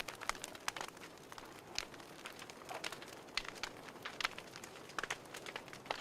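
Fireplace crackling: irregular sharp pops and snaps over a soft steady hiss.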